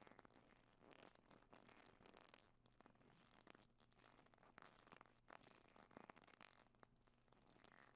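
Faint scratchy rubbing and scraping on a rubber float, in quick irregular strokes.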